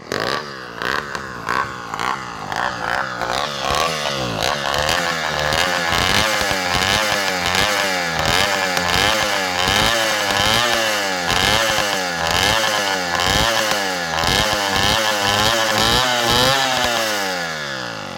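Motorized bicycle's small engine blipped up and down through its open exhaust pipe, at first in short choppy bursts and then in a steady rhythm of rising and falling revs about once a second. The revving dies away near the end.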